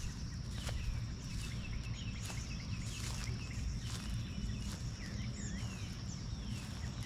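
Outdoor ambience of small birds chirping in short, quick sweeping calls over a steady high-pitched tone. Occasional sharp footstep-like crunches come about once a second, over a low rumble.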